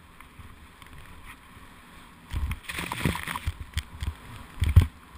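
Riding a powder turn through deep snow, heard from a helmet camera: a soft hiss at first, then from about two seconds in snow sprays up over the helmet with a rushing hiss and several heavy thumps, the loudest near the end.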